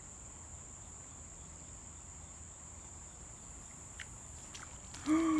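Crickets trilling in a steady, continuous high-pitched drone. A faint click about four seconds in, and a voice begins just at the end.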